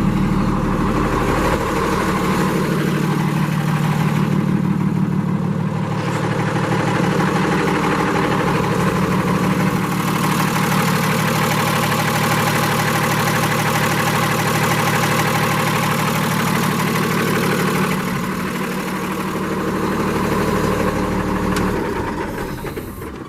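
Cummins ISL inline-six diesel in a Freightliner M2 106 truck, idling steadily. The sound drops away near the end.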